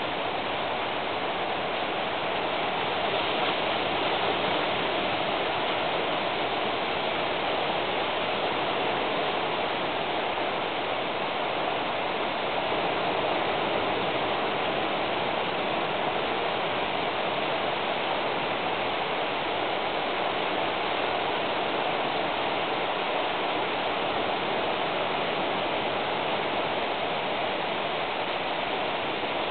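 Steady, even rushing noise that holds at one level, with no separate clicks, drops or tones in it.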